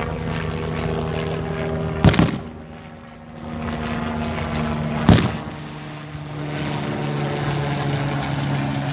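Two sharp firework bangs, about two seconds in and about five seconds in, over a steady low mechanical hum.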